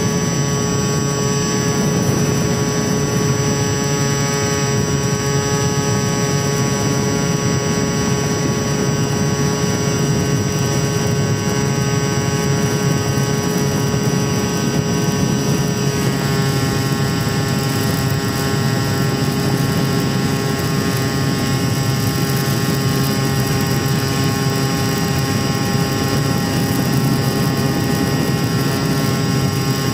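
Sunnysky 2216 KV1250 brushless electric motor turning an APC 9x6 propeller on a Mini Talon RC plane in flight: a steady, many-toned whine over air rush, picked up by a camera on the plane. About halfway through, the whine's tones shift slightly.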